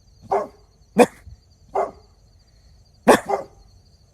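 Dog barking in short, sharp barks, about five in all, two of them close together about three seconds in.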